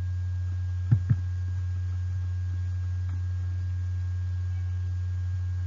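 Steady low electrical hum, with two brief faint sounds about a second in.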